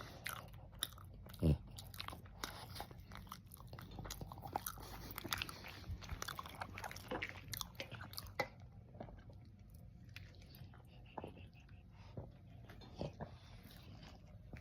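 Close chewing and wet mouth clicks of a soft steamed red bean bun being eaten, with one brief falling vocal sound about a second and a half in.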